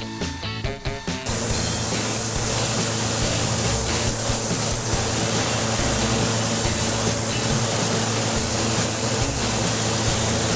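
Music stops about a second in and gives way to a steady hiss: an automotive paint spray gun spraying, over a low steady hum.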